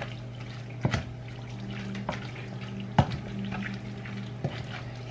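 A spoon stirring a thick meat mixture in a pot, with several sharp knocks of the spoon against the pot, the loudest about three seconds in. A steady low hum runs underneath.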